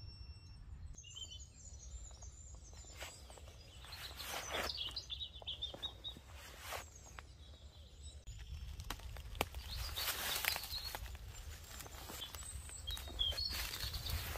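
Faint outdoor ambience: a few short bird chirps over a low, steady rumble, with scattered light clicks and rustles.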